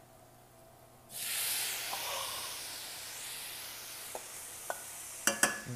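Cold diced tomatoes dropped into a hot pan of garlic and olive oil, setting off a sudden loud sizzle about a second in that slowly dies away as the cold vegetables cool the pan and stop the garlic cooking. A few light clicks near the end.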